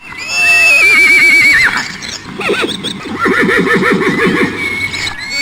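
Horse whinny sound effect: a loud, high, quavering neigh that falls away at the end, followed by lower fluttering calls.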